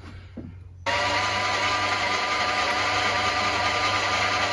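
Milling machine spindle running steadily with a small drill bit in its chuck, drilling a 3/32 in hole into a small cylinder casting: a steady mechanical whine of several tones over a hiss. It starts abruptly about a second in.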